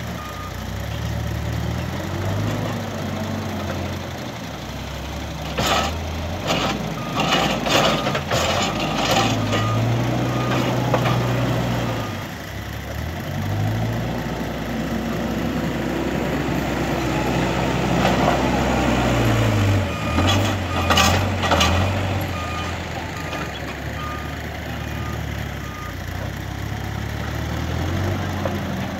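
Cat 432F backhoe loader's diesel engine working, its revs rising and falling. A reversing alarm beeps at the start and again in the later part. Two spells of loud clattering come about a fifth of the way in and about two-thirds through, the loudest sounds here.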